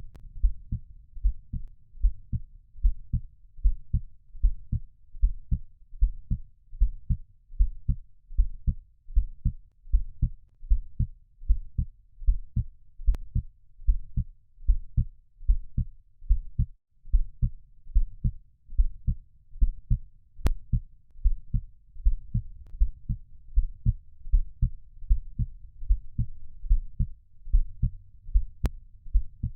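Heartbeat sound: a steady, even rhythm of soft, low, muffled thumps.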